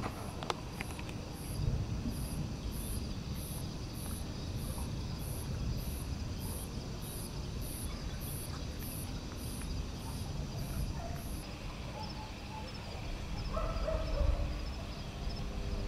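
An insect chirping in short, evenly spaced high pulses, about two a second, over a steady low noise; the chirping stops about eleven seconds in. A brief pitched call follows near the end.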